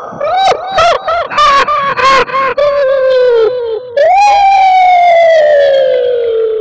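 Ghostly wailing sound effect: a quick run of short hoots, each rising and falling in pitch, then about four seconds in a long wail that slides slowly down.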